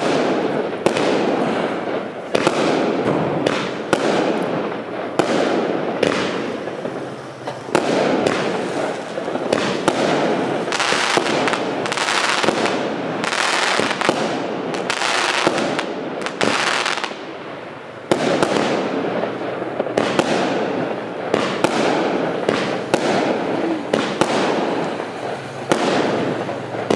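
Supernova 'Gyrating Genies' firework cake firing shot after shot: many sharp launch thumps and aerial bursts, at times several a second, over a continuous rushing noise.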